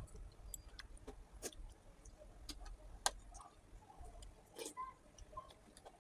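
Close-up eating sounds: sharp, wet mouth clicks and smacks while chewing soft food, a handful spaced irregularly about a second apart.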